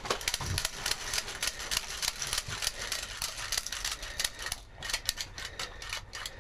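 Rapid airsoft fire: a dense, irregular crackle of many sharp clicks and taps, with short gaps about five seconds in.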